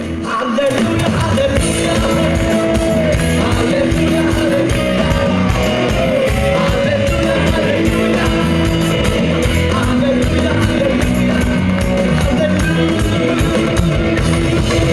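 Upbeat music with singing over a steady beat.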